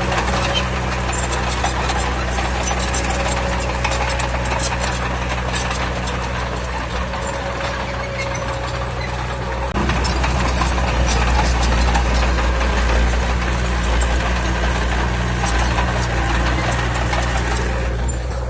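Heavy diesel engine running with a steady rumble, growing louder and deeper about ten seconds in as it works harder.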